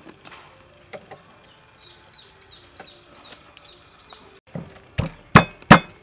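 Wooden pestle pounding green chilies in a heavy wooden mortar. The dull knocks start about five seconds in and come about three a second. Before that, soft clicks of chilies dropping into the bowl and faint repeated high chirps.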